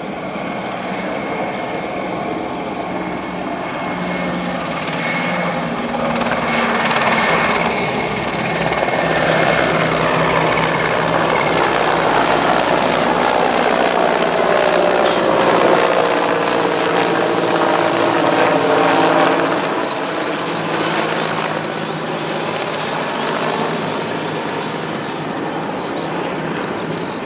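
Mi-171Sh transport helicopters flying past, the rotor and turbine noise growing louder toward the middle. The pitch sinks as one passes by, and the noise then eases off a little.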